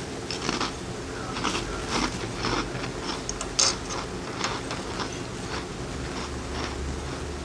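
Close-up eating sounds: irregular short crunches and mouth clicks of someone chewing, about a dozen over the few seconds, the sharpest about three and a half seconds in.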